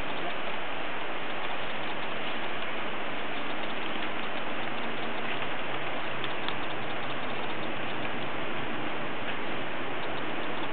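Steady, even rushing noise with no distinct events, like running water or rain.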